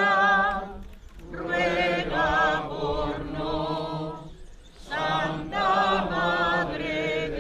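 A choir singing a hymn, the voices wavering with vibrato, in sung phrases of a couple of seconds broken by short pauses for breath.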